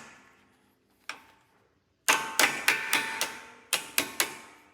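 Hammer tapping a punch to drive out the front brake pad retaining pin on a 2005 Volkswagen Touareg caliper, each blow a sharp ringing metal tap. One tap comes about a second in, then a quick run of about five at roughly four a second, then three more near the end.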